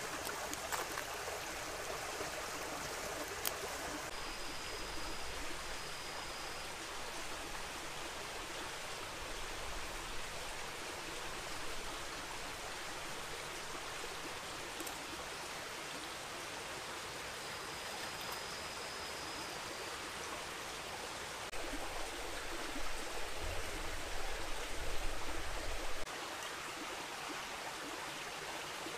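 A stream flowing steadily, an even rushing of water. A few light clicks come in the first seconds, two brief thin high whistles are heard, and a low rumble swells for a few seconds about three-quarters of the way in.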